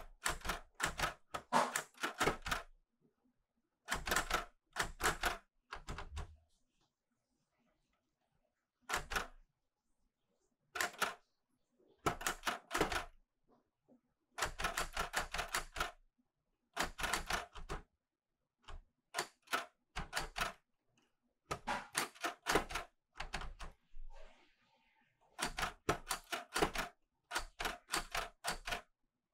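Clover 810S manual typewriter being typed on: bursts of quick key strikes, the typebars snapping against the platen, broken by pauses of one to three seconds between runs.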